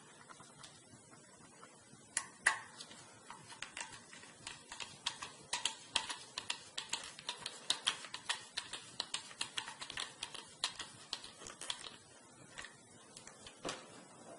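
Irregular small clicks and taps, several a second, from about two seconds in until near the end: laptop and hard-drive parts being handled during a drive swap.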